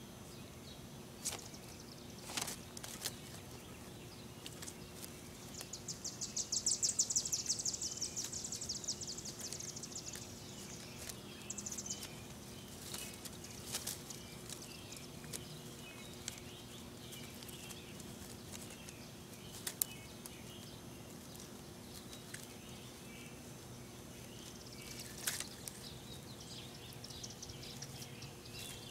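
Outdoor ambience over a faint steady hum, with a bird's high, rapid trill lasting a few seconds about six seconds in and a shorter one soon after. Scattered light clicks and rustles come from kittens scrambling over dry twigs, and faint high chirps near the end.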